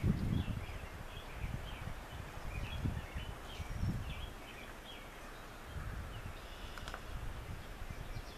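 Birds chirping and singing repeatedly, with an irregular low rumble underneath that is strongest in the first second.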